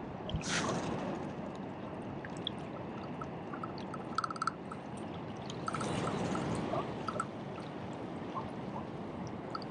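Water washing and splashing in two louder surges, one near the start and one about halfway through, over a steady rushing background.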